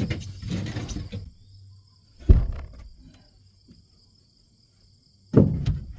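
Knocks and one loud thud from a plywood roof sheet being handled, with insects trilling steadily in the first second and again near the end.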